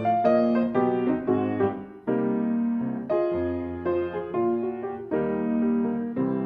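Background piano music: a melody of struck notes over a changing bass line.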